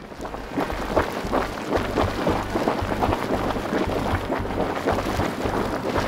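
Hot-spring mud pot bubbling, thick grey mud plopping in quick, irregular pops, with gusty wind rumbling low on the microphone.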